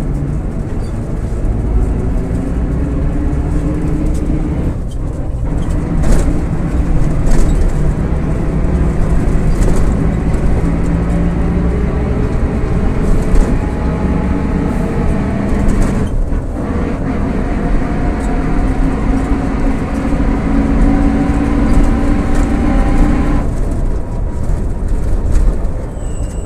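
VolksBus 17-230 OD city bus running under load on its MAN D08 34 4.6-litre diesel, with a loud differential howl over the engine. The whine climbs slowly in pitch, drops out briefly twice (about 5 and 16 seconds in) and stops a few seconds before the end.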